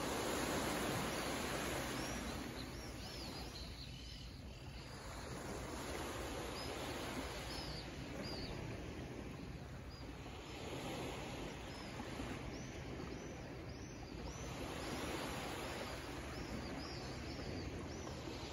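Small waves of a calm Mediterranean Sea washing softly against shoreline rocks, swelling and easing every few seconds, with many short, high bird chirps throughout.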